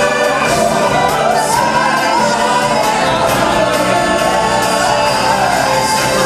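Loud show music with a choir singing over a full backing track.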